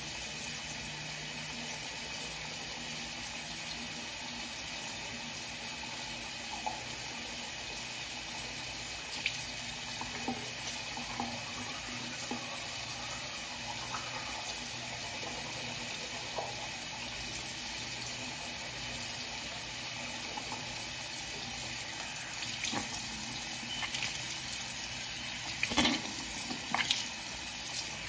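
Steady hissing noise with a faint low hum, broken by a few light knocks and clicks that come more often in the last few seconds.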